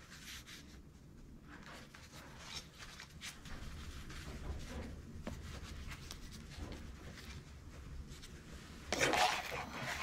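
Faint scraping, rubbing and small clicks of gloved hands and tools working on a metal hydraulic joystick pilot valve, with a louder brief sound near the end.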